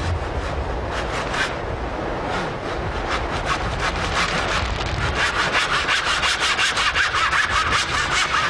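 Handsaw cutting through thin wooden boards in rhythmic back-and-forth strokes. From about halfway through, the strokes come faster and louder, around four a second.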